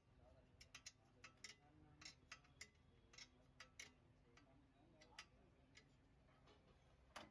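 Faint, irregular metallic clicks of a ring spanner working the nut on a front lower suspension arm, about a dozen light ticks spread out over several seconds.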